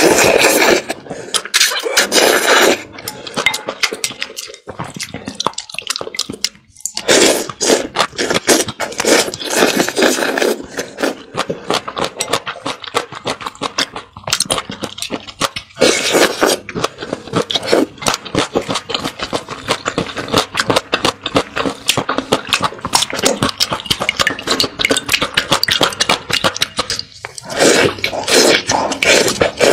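Close-miked eating of noodles in soup: slurping the noodles in and wet chewing, with dense clicking mouth sounds throughout and several longer, louder slurps at the start, near the middle and near the end.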